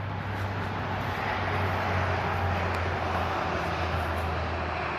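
Engine running steadily with a constant low hum, swelling slightly toward the middle and easing off again.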